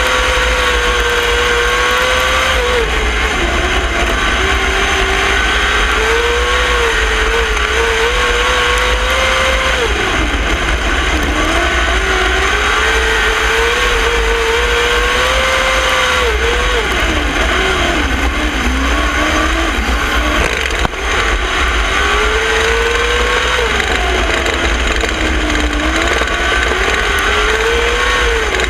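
Winged dirt-track sprint car's methanol-burning V8 heard onboard at racing speed. Its pitch dips as the driver lifts for each corner and climbs back on the throttle down each straight, about every seven seconds, over a steady low wind rumble on the camera.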